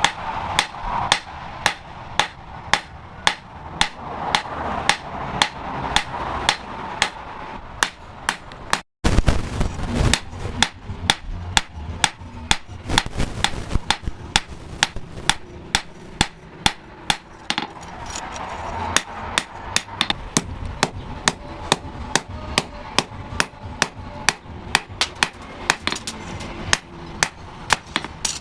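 Blacksmith's hammer forging hot steel on an anvil: sharp ringing metal-on-metal blows at a steady pace of about two a second. A brief break comes about nine seconds in, then the hammering carries on.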